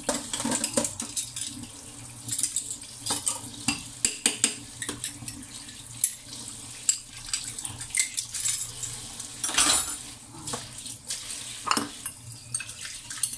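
Kitchenware clinking and knocking irregularly as hands handle food in a dish at a kitchen counter, with a couple of brief wet, splashy noises, the longest a little before the end.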